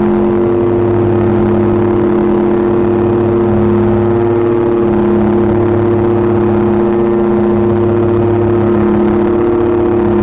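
Heavy electronic drone noise from a Hewlett-Packard 200C audio oscillator and 'frequency analyzer v1' units: several steady low tones held together over a gritty noise wash, loud and unbroken.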